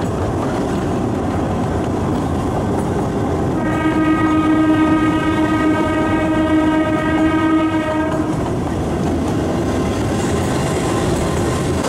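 Kurobe Gorge Railway narrow-gauge trolley train running, with a steady rumble of wheels on rails. About four seconds in, the train's horn gives one long blast on a single steady pitch, lasting about four and a half seconds.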